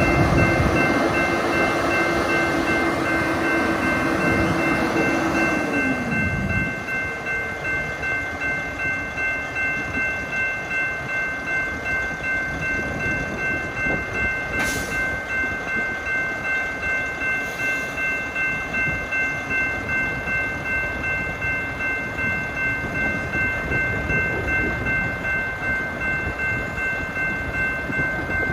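Railroad grade-crossing bell ringing in a steady repeating rhythm, over the low running of the BNSF hi-rail truck's diesel engine on the track. For the first five seconds or so a horn holds one long note, which sags in pitch as it cuts off.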